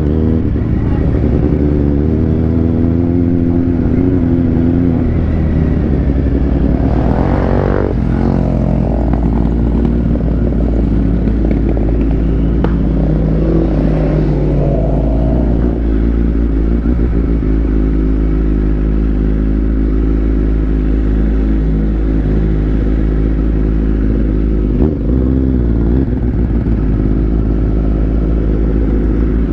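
Motorcycle engine running as the bike rides slowly along a dirt track, heard from the rider's seat, its pitch rising and falling with the throttle. Another motorcycle's engine joins in about halfway through as it pulls alongside.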